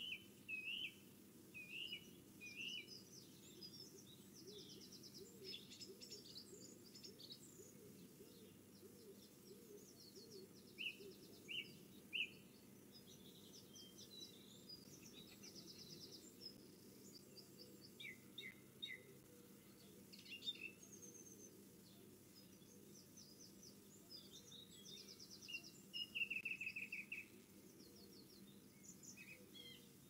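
Small garden songbirds calling and singing on and off: short chirps and several quick trills of rapidly repeated notes, the loudest trill about 26 seconds in. A faint low background hum runs underneath.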